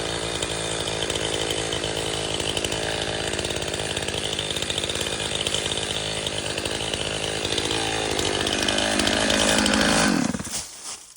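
Chainsaw running steadily, growing louder toward the end, then stopping abruptly about ten seconds in.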